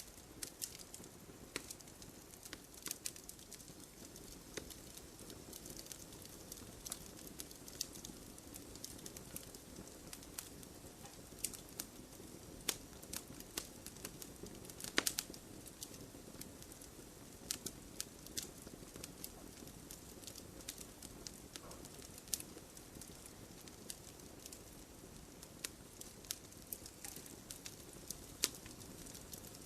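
Wood fire crackling: a steady low rush of flame with irregular sharp pops and snaps scattered throughout, the loudest about fifteen seconds in.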